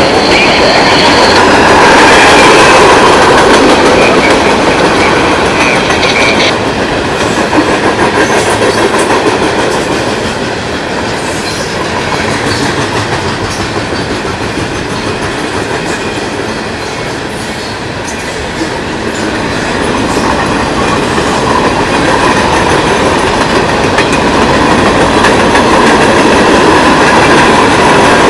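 Freight cars rolling past close by: a steady roar of steel wheels on rail with clickety-clack over the rail joints. A high thin tone rings over it in the first several seconds, and the rolling noise eases in the middle, then builds again toward the end.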